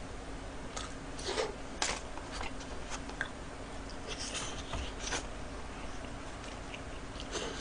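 Soft chewing and mouth noises of a person eating French fries, a handful of short, quiet sounds spread through.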